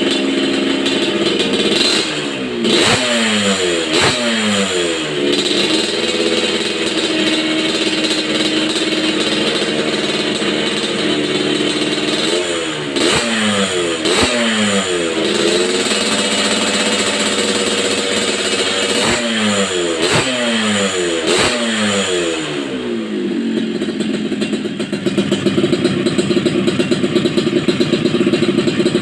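Yamaha RX-King's single-cylinder two-stroke engine being revved with quick throttle blips, in three bursts of about three blips each, the revs falling back after every blip. After the last burst it settles into a steady, pulsing idle.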